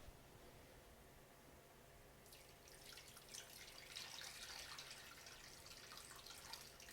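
Water being poured faintly into a stockpot of chicken and vegetables, a soft splashing hiss that begins about two seconds in.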